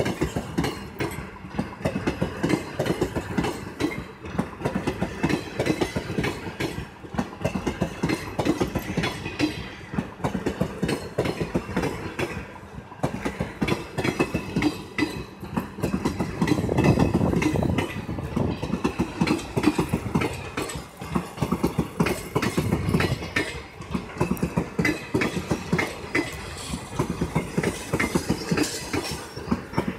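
Coaches and NMG parcel vans of a passing Indian Railways parcel train rolling past, steel wheels clattering over the rail joints in a continuous clickety-clack with a low rumble, loudest for a couple of seconds around the middle.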